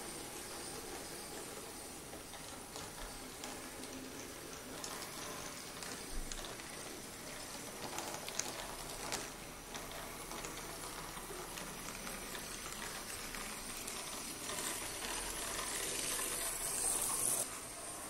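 Model electric locomotive running on track, its small motor and wheels whirring and clicking over the rails, with a few sharp clicks along the way. It grows louder as it draws close, then cuts off suddenly near the end, over a steady hiss.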